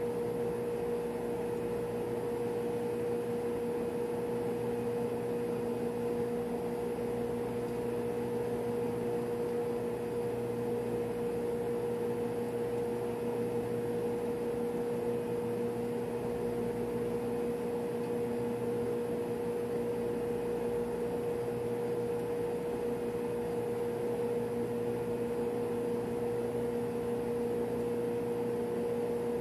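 Steady hum of running machinery in a ship's refrigeration machinery space: a constant drone with one clear steady tone, unbroken throughout.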